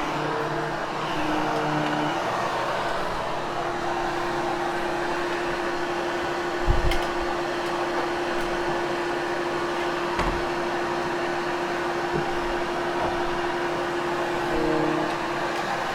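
Hoover HushTone upright vacuum running steadily over carpet with a steady motor hum, its pitch shifting briefly near the start and near the end. A dull thump about seven seconds in is the loudest moment, with a lighter knock about ten seconds in.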